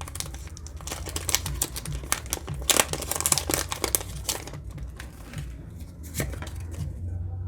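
A foil trading-card booster pack crinkling and tearing as it is opened: dense crackling for the first half, then sparser, quieter crinkles.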